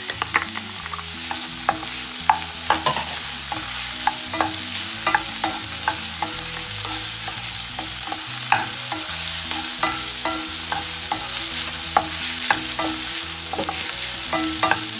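Diced onion and capsicum sizzling in hot oil in a stainless-steel frying pan, with a steady hiss, while a spatula stirs them, scraping and clicking against the pan many times.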